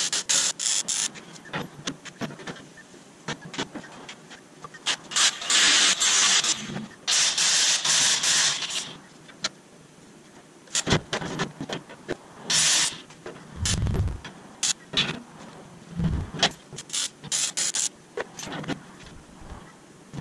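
Shop work noises: repeated hissing, scraping bursts of a second or two, many sharp clicks and knocks, and two dull thuds in the second half.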